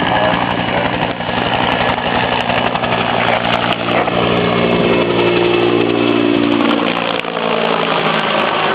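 Helicopter running close by: a steady turbine whine and rotor noise with a fast, regular low beat, which fades near the end.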